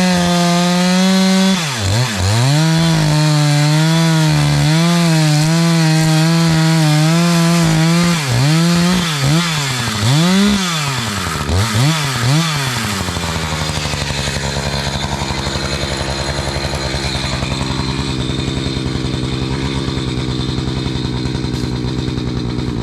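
Two-stroke chainsaw running at full throttle through wood, its pitch sagging and recovering several times under load. About halfway through the throttle is released and the engine drops to a steady idle.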